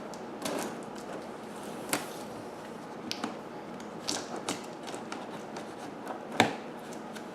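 Cardboard box being opened by hand: scattered taps, clicks and rustles of the flaps and packing, with a sharper knock about six seconds in.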